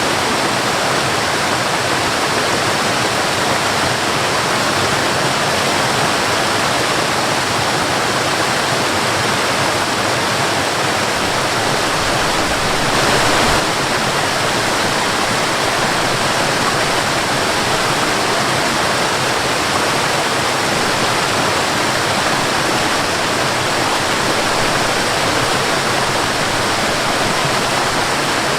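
Waterfall: a steady rush of falling water, with a brief swell about halfway through.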